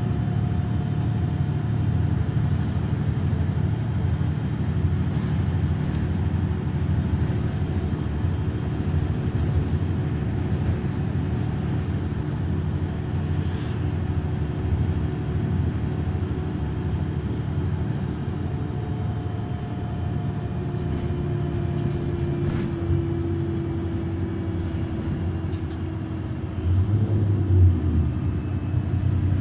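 MAN Lion's City city bus's diesel engine idling steadily as a low rumble, its note strengthening briefly near the end.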